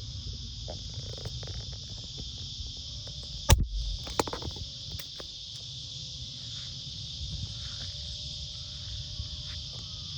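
Steady, high-pitched insect chorus with wind rumble on the microphone. A sharp knock about three and a half seconds in, followed by a few lighter clicks.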